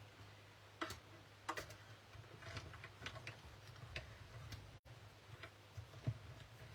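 Irregular light clicks and taps over a faint low hum, from working a die and cutting plate through a small hand-cranked die-cutting machine.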